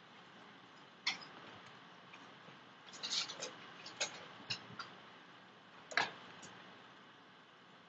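Scattered sharp clicks and taps: one about a second in, a quick cluster around three seconds, a few single ones after, and the loudest about six seconds in, over a faint background hiss.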